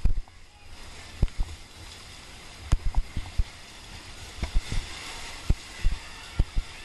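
Kayak being paddled down river whitewater: rushing water with irregular, sharp low thumps of paddle strokes and water striking the boat and camera.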